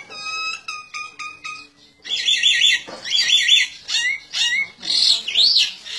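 A bird chirping in rapid, loud clusters of short high notes, some sliding up and down in pitch. The chirping comes in after a couple of seconds of fainter, steadier tones.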